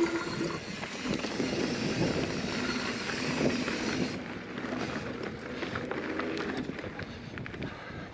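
Hardtail mountain bike riding over rough trail: tyres rolling on dirt with a steady rush and frequent rattling knocks from the bike over bumps.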